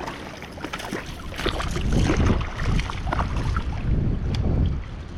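Wind buffeting the microphone in a low rumble that swells through the middle, over scattered splashes and small knocks on a kayak.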